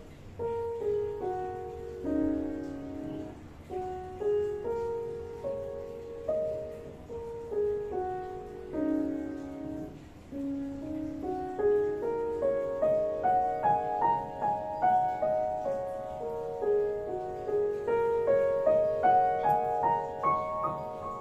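Upright piano played solo: a gentle melody of held notes in the middle register. About halfway through the notes climb higher and the playing grows louder.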